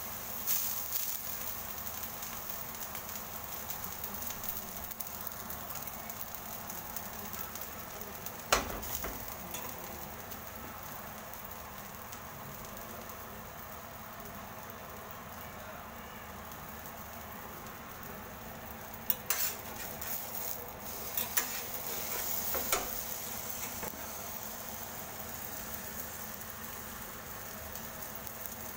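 Ramly burger patty frying on a flat round iron griddle, sizzling steadily. There is a sharp metal tap about a third of the way through, and a cluster of spatula taps and scrapes on the pan around two-thirds of the way through.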